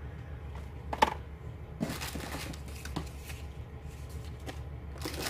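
A few light knocks and taps as small boxed and plastic items are handled and set down on a tabletop, the sharpest about a second in, over a steady low hum.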